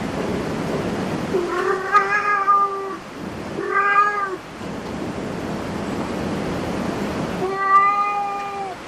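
A domestic cat meowing three times: two calls close together, the first about a second and a half in and the second around four seconds, then a third near the end. Each is held on a fairly steady pitch.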